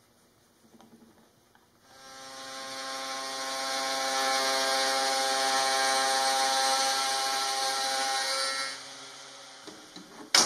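Table-mounted router spinning up about two seconds in and running with a steady whine while a clamped wooden block is fed past the bit, then winding down. A sharp click right at the end.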